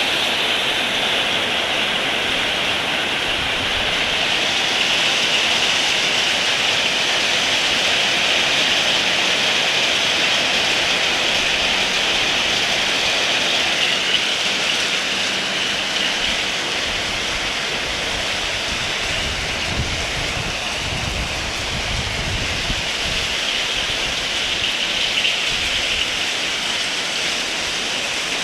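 Heavy rain falling steadily, a dense even hiss, with a low rumble that rises about two-thirds of the way through.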